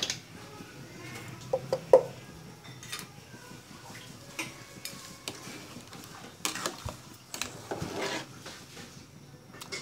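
Metal ladle stirring soup in a metal cooking pot. It clinks sharply against the pot twice about two seconds in, then knocks and scrapes against the sides through the rest of the stirring.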